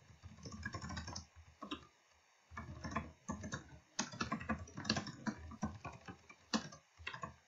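Typing on a computer keyboard: quick runs of keystrokes broken by short pauses, the longest about two seconds in.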